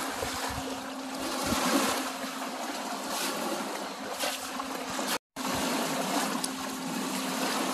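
Shallow lake water lapping and splashing at a sandy shore as a person and a small dog wade through it, over a steady low hum. The sound drops out for an instant about five seconds in.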